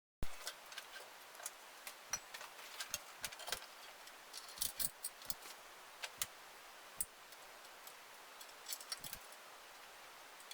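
Irregular light metallic clicks and taps of hand tools and small parts being handled. The sound cuts in abruptly with a sharp click, and the taps come unevenly, some in quick clusters.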